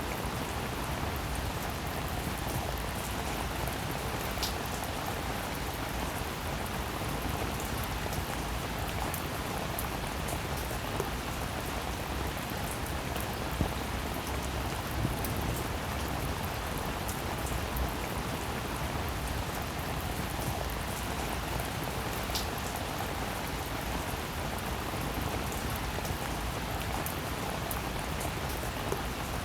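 Steady rain falling, an even hiss of many drops with scattered sharper drop ticks.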